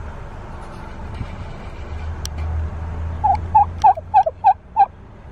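A turkey calling in a quick run of about six short notes, a little past halfway through, over the steady low road rumble of the car it is riding in.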